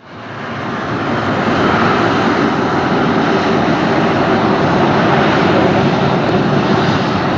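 Boeing 737-500's CFM56-3 turbofan engines running steadily as the airliner taxis and turns, the sound fading in over the first second or two.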